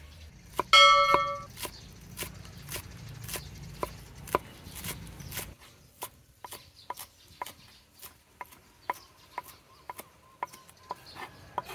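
A knife chopping green onions on a thick wooden chopping board: a steady run of sharp taps, about two or three a second. A short bright chime about a second in, the subscribe-button sound effect, is the loudest sound.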